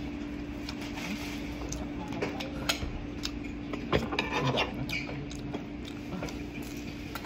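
Spoons and forks clinking and scraping on plates during a meal: scattered sharp clicks, the loudest about three and four seconds in, over a steady low hum.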